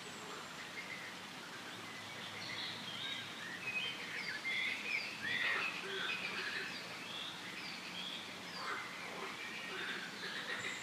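Many wild birds chirping and calling over a steady forest background hiss, the calls growing busier about two seconds in.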